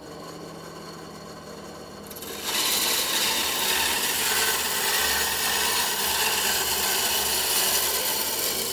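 WEN 3959 9-inch benchtop bandsaw running, with its blade cutting into a wooden 2x8. The motor runs alone at first; about two and a half seconds in, the blade bites into the wood and a much louder, steady sawing noise takes over.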